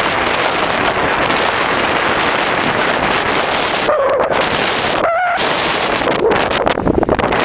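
Strong storm wind buffeting the microphone as a steady rush of noise. Three short, wavering whine-like tones cut through it at about four, five and six seconds in.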